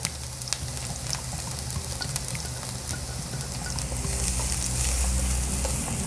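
Chopped onion and garlic sizzling in hot oil in a nonstick frying pan, stirred with a plastic slotted spatula that scrapes and taps the pan in short clicks. The sizzle gets a little louder about four seconds in.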